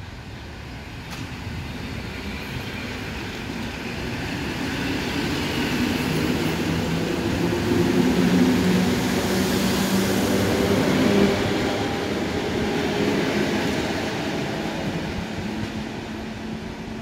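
EN57 electric multiple unit passing close by along the platform. The sound builds to its loudest about eight to eleven seconds in, with a steady low hum, then fades as the train moves away.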